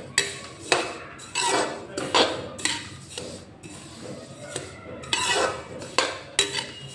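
Metal spoon stirring sesame seeds as they dry-roast in a metal kadhai: repeated scrapes of metal on metal through the seeds, roughly two strokes a second.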